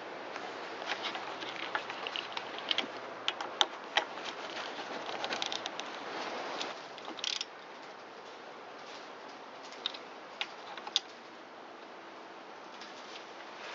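Hand tools clicking and tapping on a small engine as the intake pipe screws are tightened down. Clicks come thick and fast in the first half, with a brief scrape about seven seconds in, then only a few scattered clicks.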